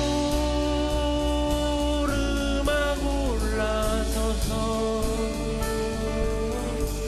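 Live band playing a slow song: acoustic guitar, upright bass, keyboard and a drum kit with cymbals, under a man singing long held notes that slide to a lower pitch about three seconds in.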